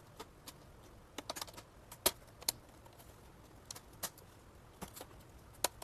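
Sharp plastic clicks and snaps at irregular intervals, a cluster about a second in and single ones after: the retaining clips of a laptop's display bezel letting go as it is pried off.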